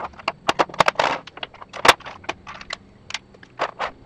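Machined steel skate parts and bearings clinking and knocking against each other and the metal workbench as they are picked up and set down, a quick irregular run of sharp clicks, sped up by fast-forward. The loudest knock comes about two seconds in.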